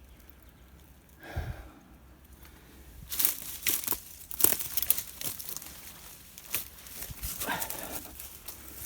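Footsteps crunching and crackling through dry leaf litter, twigs and scrub, a dense run of sharp crackles starting about three seconds in and easing off towards the end.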